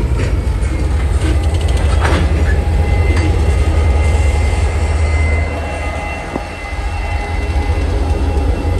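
Norfolk Southern diesel locomotives moving past at close range: a deep, steady engine rumble with a faint thin squeal from the wheels, and a few metallic clanks about two and three seconds in.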